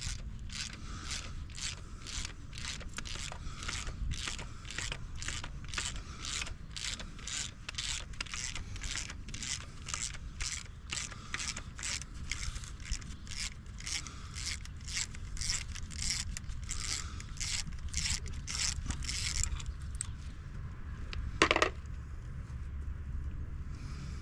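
Hand ratchet backing out a loosened exhaust manifold bolt on a Chevy 5.3 V8, its pawl clicking in a steady rhythm of about two strokes a second. The clicking stops about 20 seconds in, followed by a single sharp knock.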